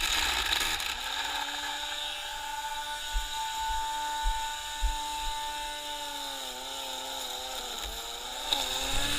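String trimmer (whipper snipper) motor running at a steady high speed, then dipping and wavering in pitch from about six and a half seconds in.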